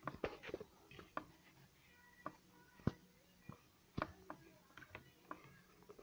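Fingers handling the wiring and plastic parts around a Samsung fridge's electronic timer, close to the microphone: irregular light clicks and knocks, the sharpest just before three seconds in and again at four seconds.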